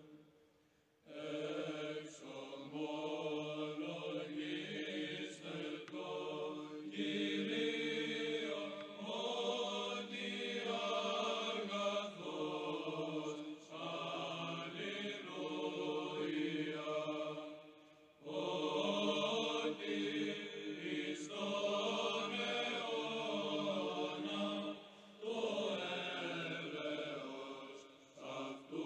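Slow choral chanting by male voices, long held notes sung in phrases with a few brief pauses between them.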